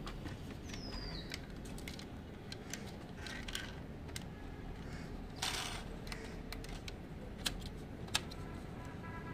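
Scattered light clicks and taps of a diecast model SUV being handled: picked out of a plastic tub, turned in the hand and its small door and wheel fingered, with a short scraping rustle about halfway through.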